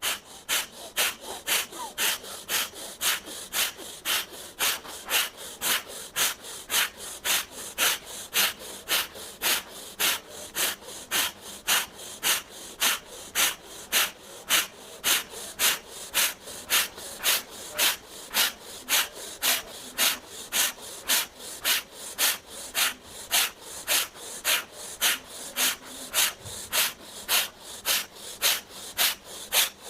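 Bhastrika pranayama (bellows breath): a person breathing in and out forcefully in a rapid, even rhythm, a little under two sharp breaths a second.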